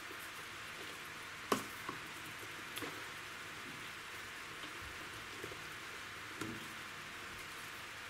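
Faint rustling and a few light clicks of orchid bark pieces and sphagnum moss being tucked into a pot around the plant's neck, over a steady hiss. The sharpest click comes about a second and a half in.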